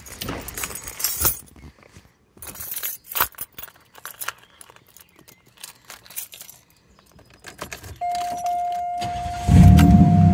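Keys jangling and clicking at the ignition, then a steady electronic warning tone from about eight seconds in. Near the end the Buick 3800 3.8-litre V6 starts and runs loud, with no muffler: it fell off, so the exhaust is effectively straight-piped.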